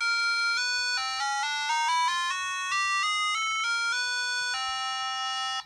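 Electronic melody played through the built-in speaker of a DeltaLab chromatic tuner and metronome: a quick run of short notes that steps up in pitch and then back down, ending on a longer held note that cuts off suddenly.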